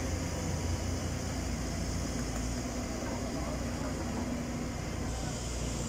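Diesel engines of a bulldozer and an excavator running steadily, a low continuous drone.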